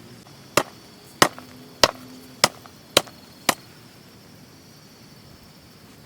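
Six sharp strikes in an even rhythm, about one every 0.6 seconds, ending about halfway through.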